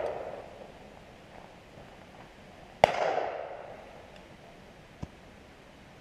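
A shotgun shot about three seconds in, its report dying away over about a second. The fading tail of an earlier shot is heard at the start, and a faint click follows about five seconds in.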